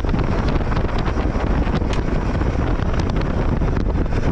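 Steady rush of wind buffeting the microphone aboard a motorboat under way at sea, mixed with the boat's running noise and water.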